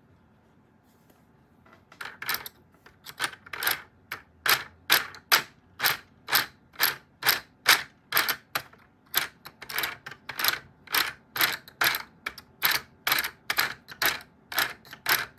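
Plastic propeller blades on a Fischertechnik gear train being flicked around by a finger over and over: sharp plastic clicks, about two or three a second, starting about two seconds in.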